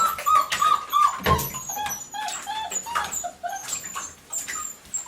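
Six-week-old Aussiedoodle puppy whining in a quick run of short, high cries, about three a second, among small clicks and splashes, with a dull knock about a second in.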